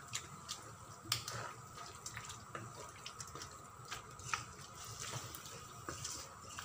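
Wooden spatula stirring a wet chicken and potato curry in a non-stick wok: irregular squelching and light scraping taps against the pan, over a faint steady hum.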